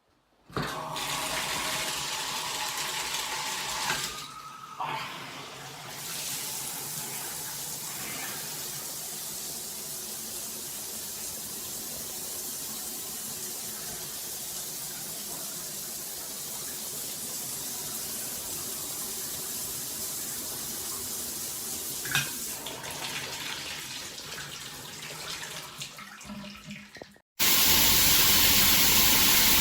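Water from an 8-inch round stainless steel rain shower head pouring down as a steady rushing spray. Near the end the spray becomes suddenly louder and brighter.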